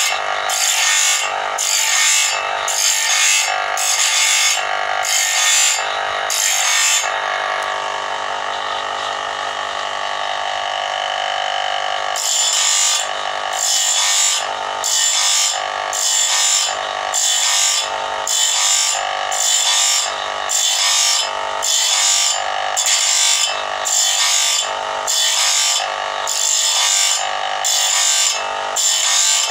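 Electric grinder motor running, its abrasive disc grinding the teeth of a band saw blade one by one: a regular rasp, roughly twice a second, over the motor's steady whine. After about seven seconds the grinding stops for some five seconds, leaving only the motor running, then starts again.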